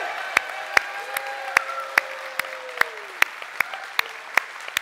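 Congregation applauding, with one clapper close by at about two and a half claps a second and a few long, held cheers over the applause.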